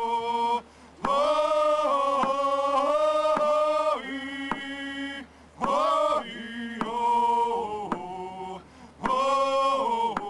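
A man's voice chanting in long held notes that step between pitches, in phrases broken by short pauses for breath.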